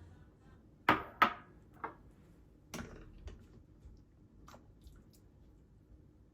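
A few short knocks and clacks of hard household objects being handled: two sharp ones close together about a second in, then fainter, scattered ones.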